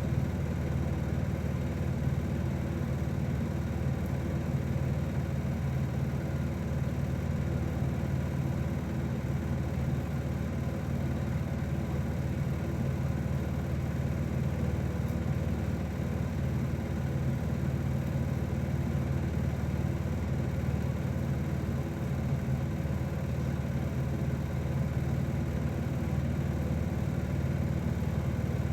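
A steady low mechanical hum that holds an even level throughout.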